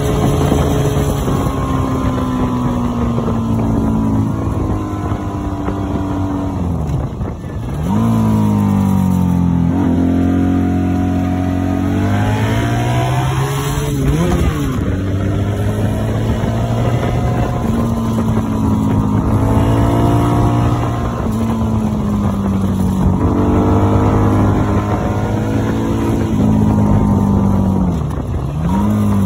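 Honda Magna VF750C's V4 engine heard from the rider's seat while riding. Its pitch sags and climbs back up several times, with a sharp dip and rise around 7 seconds, 14 seconds and near the end.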